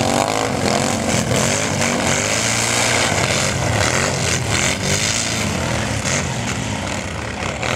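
Several racing ATV engines running at high revs together, their pitches rising and falling as they speed up and slow down.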